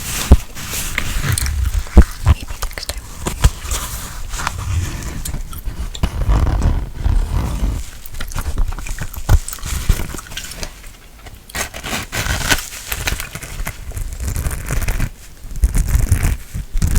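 A brush scratching and sweeping over the microphone: a loud, continuous scratchy rustle with sharp crackles and clicks, and a low rumble where it rubs the mic body.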